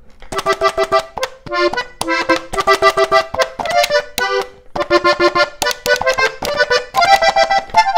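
Hohner three-row diatonic button accordion, tuned G/C/F, playing a polka melody on the treble buttons: quick runs of short repeated notes, broken by brief pauses about a second and a half in and again near the middle.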